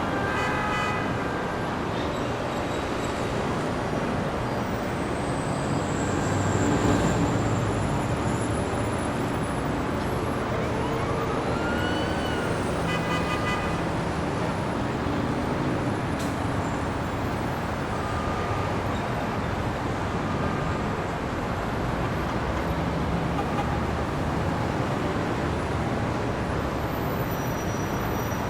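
City street traffic: a steady wash of engine and tyre noise from passing cars, swelling a little as a vehicle goes by about seven seconds in. About halfway through, a brief whine rises and falls, and a few short tones sound near the start and again just after the whine.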